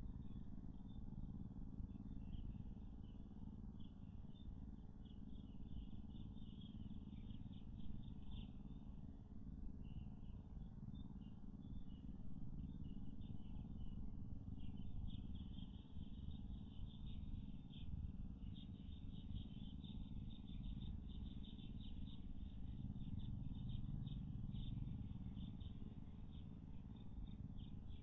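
Forest ambience: a high, rapidly pulsing chirping chorus that comes and goes, over a steady low rumble.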